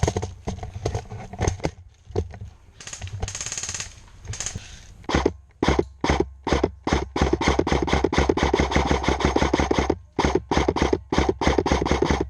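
Airsoft guns firing, with scattered shots at first and then long rapid bursts from about five seconds in until near the end.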